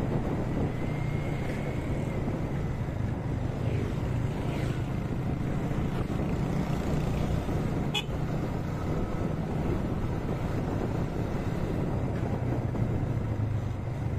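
Motorcycle engine running steadily while riding along a road, with road and wind noise, and one brief sharp click about halfway through.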